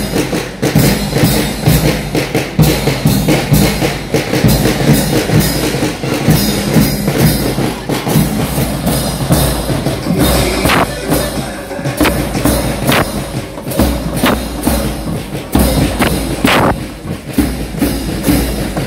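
Children's school marching band playing: bass drums, snare drums and clashed cymbals beating a marching rhythm, with several louder crashes in the second half.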